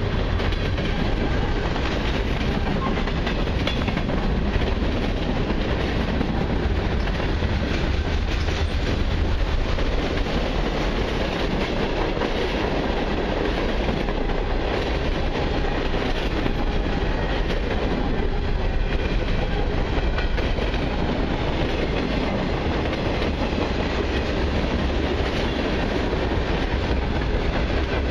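Freight cars of a long mixed freight train rolling past close by: a steady rumble of steel wheels on the rails, with clattering and clacking as the wheels pass over the rail joints.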